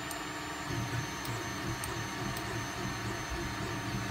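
3D printer running, its motors making a steady, uneven low hum, with a few faint ticks.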